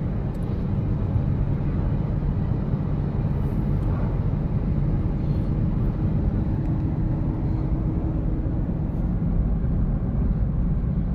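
Steady engine and road noise inside a moving car's cabin, a constant low rumble.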